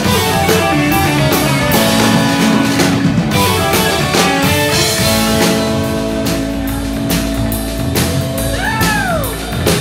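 Live rock band playing an instrumental passage: electric guitars holding and sustaining notes over a drum kit keeping a steady beat, with some guitar notes bending up and down near the end.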